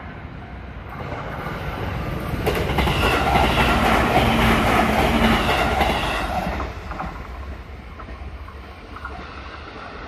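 A JR Senseki Line 205-series electric commuter train passing over a level crossing. It builds up, then its wheels clatter over the rail joints at their loudest between about three and six seconds in, with a steady whine over them. Then it fades away.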